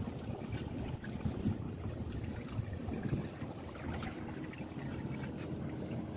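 Water rushing and splashing along the hull and in the wake of a small sailboat underway.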